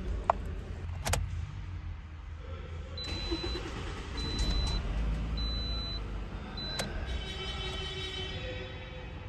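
Toyota RAV4 engine being cranked and starting, then running at idle, with a few sharp clicks along the way. This is a test start after a fuel filter replacement meant to cure long cranking.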